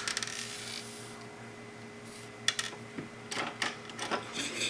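Light clicks and rustles of soldering tools being handled: a cluster at the start, a pair about two and a half seconds in, and several more near the end, over a low steady hum.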